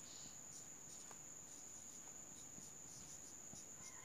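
Near silence: the faint sound of a marker writing on a whiteboard, with small ticks, under a steady high-pitched tone.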